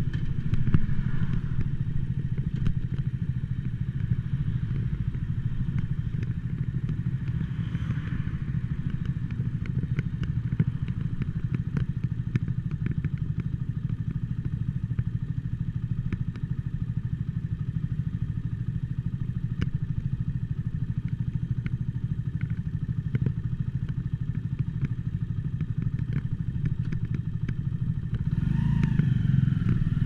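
Mutt Akita motorcycle's single-cylinder engine running steadily at low revs, with many sharp crackling clicks from the camera's recording. Near the end the revs rise as the bike pulls away.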